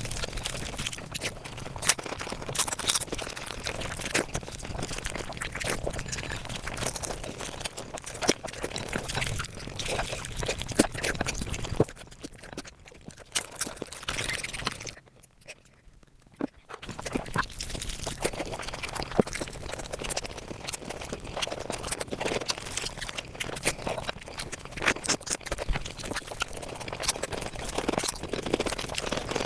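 Close-up eating sounds of rice and curry played back at five times speed: rapid chewing, smacking and wet crackling, dropping away briefly about halfway through before resuming.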